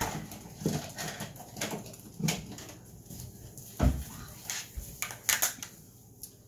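Kitchen handling sounds: a metal spoon and a plate clattering as food is served. There is a deep knock about four seconds in and a quick run of sharp clinks a second later.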